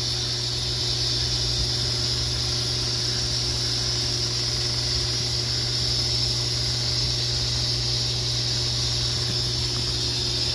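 Steady hiss with a constant low hum from a fish room's aquarium air pump driving air-driven sponge filters, with air bubbling up through the tank water.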